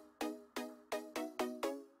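Background music: a quick melody of short, sharply struck notes, about three to four a second, each fading quickly before the next.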